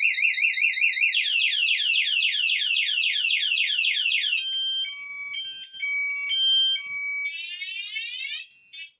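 Chinese Tiger motorcycle alarm siren sounding through its tone sequence. It starts with a fast warble, then gives about four falling sweeps a second, then a run of steady beeps that jump between pitches, then quick rising sweeps, and cuts off shortly before the end.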